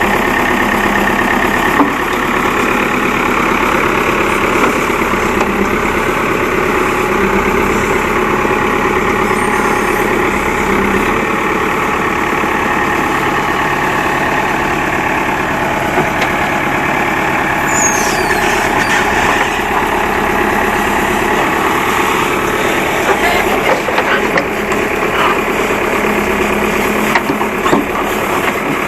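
Backhoe loader's diesel engine running steadily, with a few short knocks near the end.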